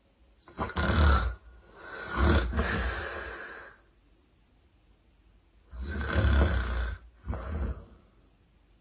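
A woman snoring loudly while sleeping on her back. The snores come in two pairs: the first pair starts about half a second in, the second about six seconds in.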